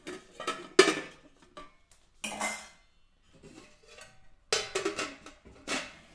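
Steel pots and a ladle clanking on a kitchen stove: three groups of sharp metal clatters, each with a short ring, the loudest just under a second in.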